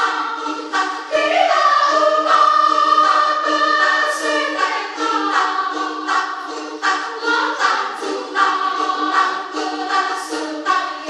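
Women's choir singing a cappella, with sustained notes that change every second or so.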